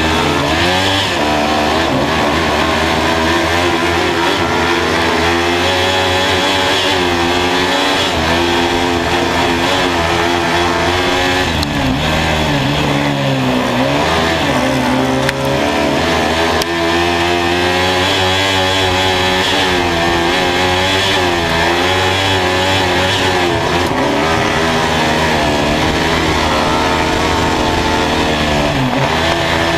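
Kart cross buggy's Honda CB500 motorcycle engine, heard from inside the cockpit while racing, revving up and dropping back again and again as the throttle is worked.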